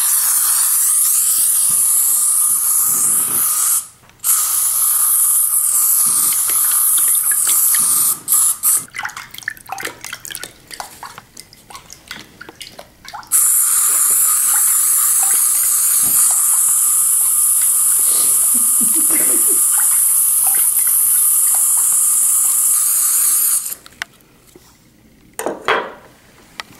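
OFF! Deep Woods aerosol insect repellent can spraying in long steady hisses. A first spray is cut by a brief break about four seconds in, then runs on for about four seconds more. After several seconds of scattered taps and clicks comes a long spray of about ten seconds.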